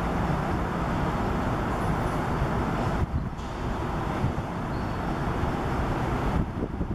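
Steady rushing background noise with a deep rumble, dropping briefly about three seconds in and again near the end.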